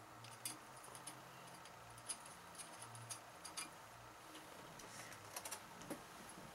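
Faint, irregular small metallic clicks and ticks as the little screws of an AR-15 handguard trim ring are handled and started into their holes by hand.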